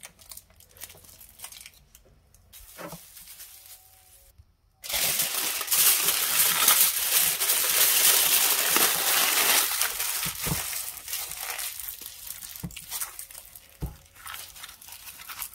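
Aluminium foil crinkling and crumpling as hands squeeze and twist it tight around a wrapped roll. Faint rustles at first, then about five seconds in a loud, dense crinkling that lasts some seven seconds before thinning to scattered crackles.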